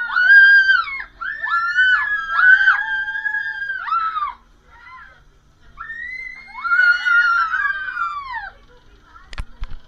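High-pitched squealing and screaming voices in a string of long, gliding shrieks, then a pause and another long shriek. A few sharp knocks come near the end.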